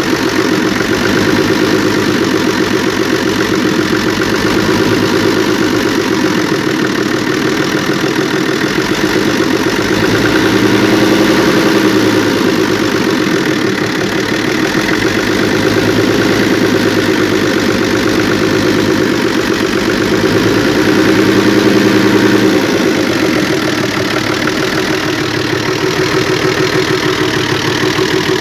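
FNM 180 truck's diesel engine idling steadily through a straight exhaust, swelling slightly twice, around the middle and near the end. It is running on old diesel after three years standing, and the owner blames old fuel filters for it not accelerating.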